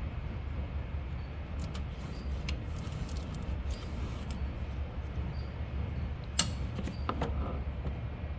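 Scattered light metallic clicks and clinks of hand tools and parts being handled, with one sharp click about six seconds in and a few more just after, over a steady low hum.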